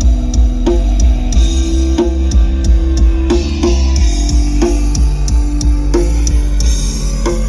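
Rock-style music with a drum kit keeping a steady beat, heavy bass and guitar.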